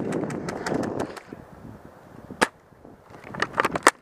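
Airsoft guns firing in a skirmish as sharp snapping shots: a quick string in the first second, a single loud shot about two and a half seconds in, and another fast cluster near the end.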